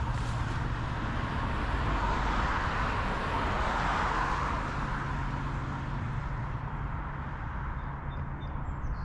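Road traffic: a car passing by, its tyre noise swelling through the first half and fading away after about five seconds, over a steady low rumble.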